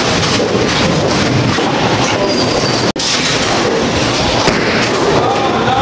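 Bowling balls rolling down the lanes: a steady rumble amid the din of a bowling alley. It drops out for an instant about three seconds in.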